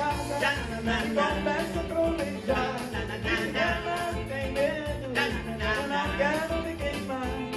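Live music: a forró-pop song with a male vocal group singing over bass and a steady beat.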